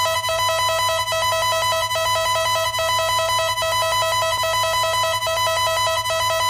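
Emergency alert system attention tone: a loud electronic alarm of several steady tones held together, with a fast flutter running through it, over a low hum.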